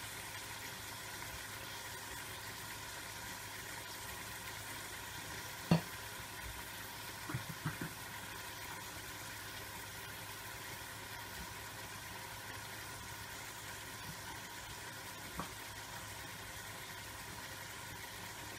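Chunks of meat frying in hot fat in an aluminium kazan: a steady, quiet sizzle over a low hum. A sharp click comes about six seconds in, and a few light knocks follow a second or two later.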